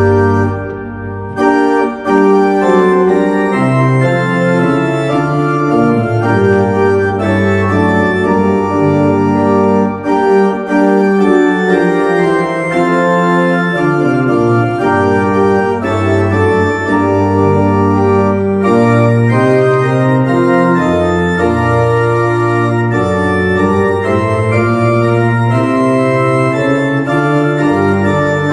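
Church organ playing a hymn tune in full sustained chords over a deep moving bass line, with a short break between phrases about a second in.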